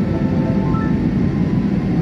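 Steady low rumble of an airliner cabin on descent, with soft background music of short drifting notes over it.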